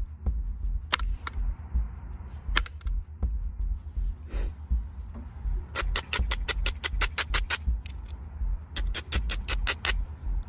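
Background music with a pulsing low beat and quick runs of sharp, high ticks, about seven a second, in two spells near the middle and near the end.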